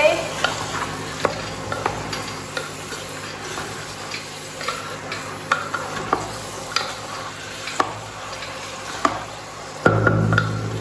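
Wooden spatula stirring chickpeas and potatoes in sizzling masala in a pressure-cooker pot: a steady sizzle with scrapes and knocks of the spatula against the pot about once a second. The chana is being fried in the spice paste before water is added.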